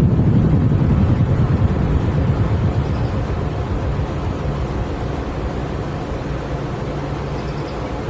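Outdoor unit of a 2022 1.5-ton Goodman heat pump in cooling mode shutting down: a steady low whooshing machine noise that slowly fades over several seconds, with a low hum beneath it.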